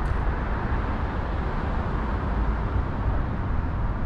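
Steady low rumble of city traffic, even in level throughout, with one faint click near the start.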